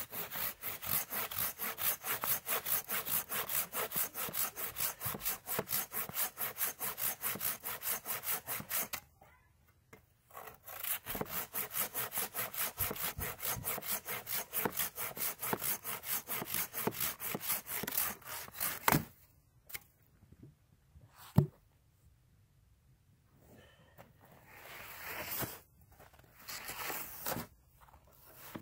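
A Silky folding pruning saw cutting through a green aspen pole in quick, even strokes, about four a second, with a short pause partway through before the cut is finished. After that come a few sharp knocks and some rustling as the cut poles are handled.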